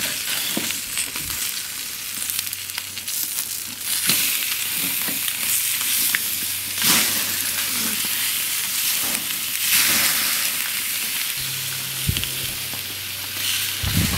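Ribeye steaks sizzling hard on hot hard-anodized aluminum grill grates over charcoal as they are turned over with a metal spatula. The sizzle swells a few times, with scattered clicks and scrapes of the spatula on the grates.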